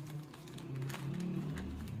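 Faint clicks and rustles of a courier parcel's packaging being handled and opened, over a steady low hum.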